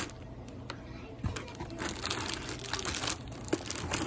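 Foil bubble-insulation liner inside a cardboard shipping box crinkling as hands pull and fold it open, with irregular crackling and small clicks.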